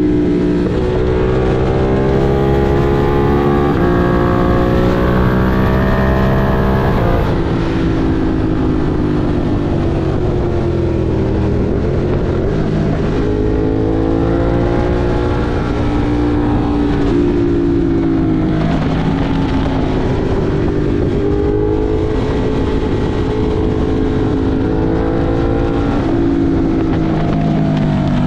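Ducati Monster 1200 R's 1198 cc L-twin engine under way, revs climbing and falling repeatedly as the bike accelerates, shifts and rolls off through the curves, with a steady rush of wind and road noise beneath.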